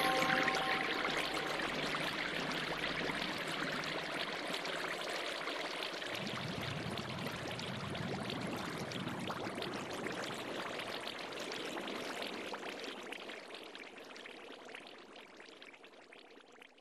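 A steady rushing, hissing noise with a fine crackle, like running water. It fades away over the last few seconds.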